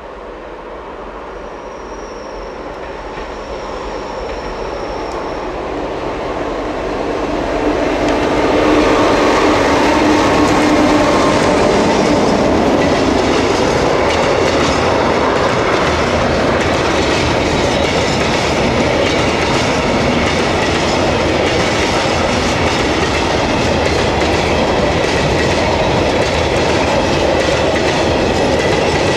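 A freight train of tank wagons passing close by. A red DB 'Ludmilla' diesel locomotive draws nearer, its engine getting steadily louder until it goes by about eight seconds in. Then comes a steady clatter of wheels over rail joints and points as the loaded tank wagons roll past.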